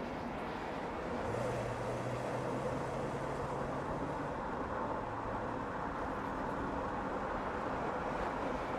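BMW M5 Competition driving at a steady speed: even tyre and road noise, with a steady low engine hum that comes in about a second in and fades partway through.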